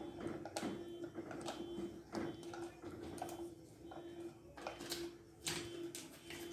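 A wooden spoon stirs thick tomato sauce in a metal saucepan, scraping and knocking against the pot in irregular clicks. A low hum underneath pulses on and off about twice a second.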